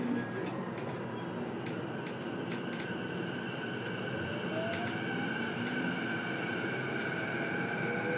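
E233-series electric train heard from inside a motor car: steady running noise under the inverter and traction-motor whine, with tones slowly rising in pitch as the train picks up speed and scattered sharp clicks from the running gear.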